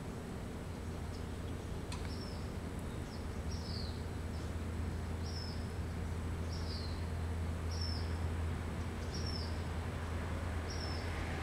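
A bird calling a short, high note that slides downward, repeated about every second and a half, over a steady low background hum.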